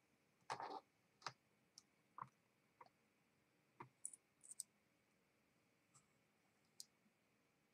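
Small metal parts of a partly disassembled ABUS C83N lock cylinder clicking and clinking as they are handled, with a short clatter about half a second in as a piece is set down on a desk mat, then scattered light clicks.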